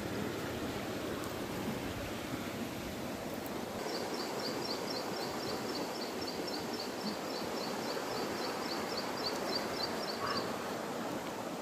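Steady creek-side background noise, with a high, fast-repeating chirping call of about four chirps a second starting about four seconds in, stopping about ten seconds in, and starting again near the end.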